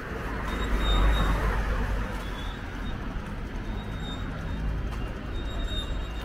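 Busy street noise with a low rumble that swells to its loudest about a second in, then settles back into a steady wash of traffic and crowd sound.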